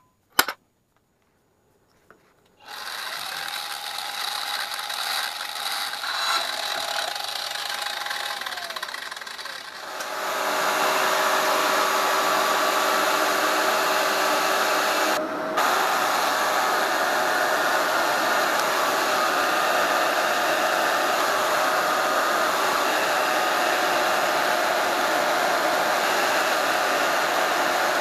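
Vertical band saw running and cutting small pieces of sheet metal: a steady whirring hiss that starts a few seconds in and grows louder about ten seconds in.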